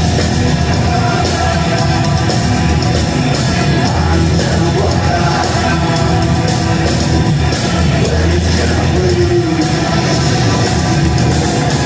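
Live electro-industrial band playing loud, dense music with a heavy, pulsing low end and vocals.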